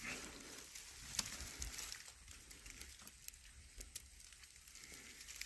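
Faint rustling with a few scattered sharp clicks, from a bundle of bamboo fishing rods and a woven plastic sack being carried and handled.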